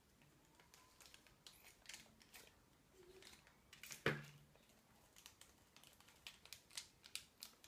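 Faint crinkles and small scattered clicks of a small plastic packet being picked at and torn open by hand, with one louder knock about four seconds in.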